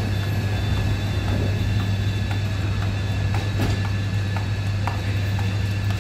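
Doors of a Kawasaki C151 MRT train and the platform screen doors closing, with several short clunks and knocks about two to five seconds in. A steady low hum runs underneath.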